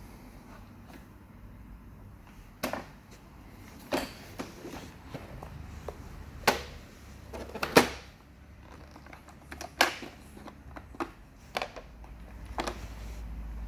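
Xiaomi Mijia 1C robot vacuum-mop making irregular sharp clicks and knocks, about seven in all, over a low hum. This is the abnormal noise the machine is faulting with.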